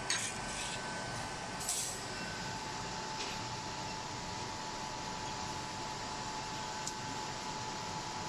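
Steady hiss and whine of a BGA rework station's hot-air blower running during LED desoldering, with a few short clicks.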